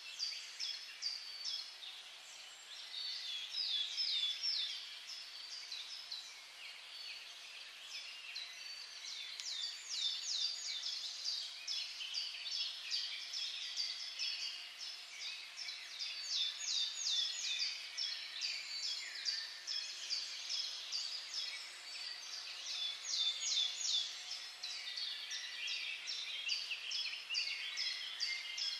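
Small birds chirping and twittering in a dense run of quick, high-pitched notes, growing louder and softer in bursts.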